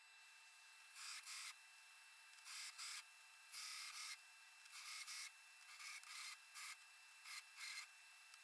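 Belt grinder running, with a thick drilled steel plate pressed against the sanding belt in about eight short passes; each pass is a louder rasp over the grinder's steady hiss.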